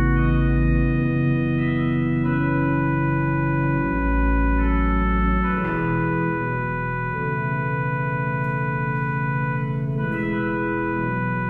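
Organ music: slow, sustained chords that shift every second or two, with deep pedal notes under the first second and again from about four to five and a half seconds in.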